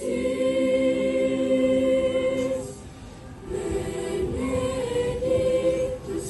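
Mixed school choir of girls' and boys' voices singing in harmony: a held chord, a short break about two and a half seconds in, then a new phrase.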